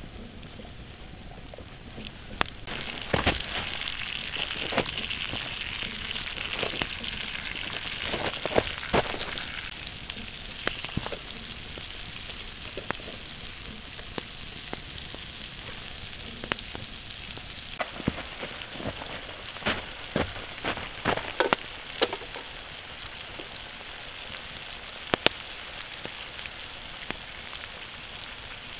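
Butter and vegetables sizzling in a pan set over a wood campfire, with scattered sharp pops and crackles. The sizzle swells about three seconds in and eases off after about ten seconds.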